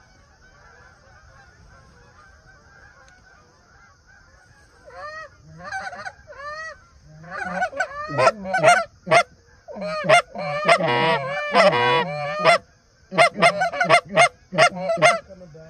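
Canada goose honking: faint distant chatter at first, then from about five seconds in a loud, fast series of honks and clucks, one after another, with a brief pause near the end.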